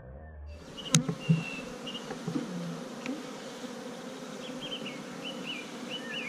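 Honeybee colony buzzing steadily around an open hive being worked, starting about half a second in, with a sharp knock about a second in.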